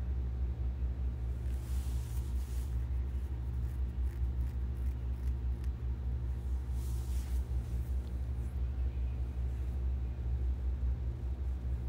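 Steady low rumble with a constant hum, typical of an engine running, with two brief soft hissing rushes, about two seconds in and again about seven seconds in.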